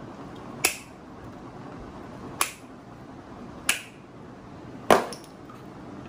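Yellow-handled cable cutters snipping through electrical wire: four sharp snips, a second or more apart.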